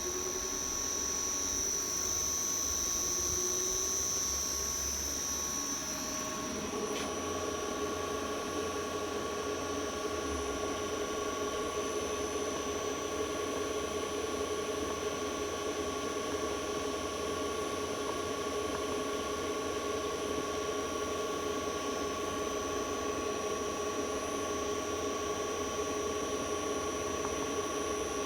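Adjustable AC frequency drive running under test, with the motor it drives: a steady electrical whine of several constant tones over a hum. The tones change about six and a half seconds in, then hold steady.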